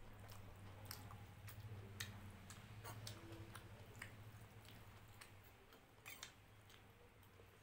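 Fingers mixing cooked rice with dal on a plate: soft, wet, sticky clicks scattered irregularly over a low steady hum.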